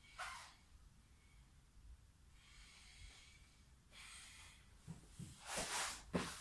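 A man breathing hard between sets of burpees, in short noisy breaths. Near the end he drops into a burpee, with a strong exhale and a sharp thump of his hands meeting the rubber floor mat.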